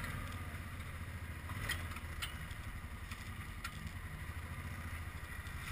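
Engine of an off-road quad (side-by-side utility vehicle) running steadily as it drives along a snow-packed road, with a few sharp clicks over the hum.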